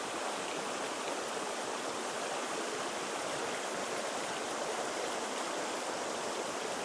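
Small mountain trout creek running, a steady rush of flowing water.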